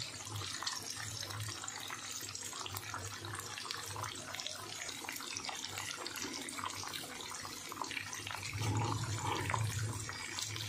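Jengkol (dogfruit) beans deep-frying in hot oil, a steady sizzle with fine crackling.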